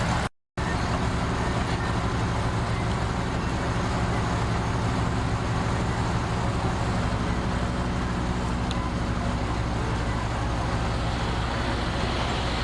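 Heavy diesel engine of an earthmoving machine running steadily at an even speed. The sound cuts out for a split second just after the start.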